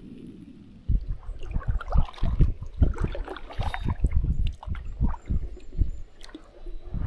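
Water splashing and gurgling around a paddle board, with many irregular low thumps and knocks starting about a second in.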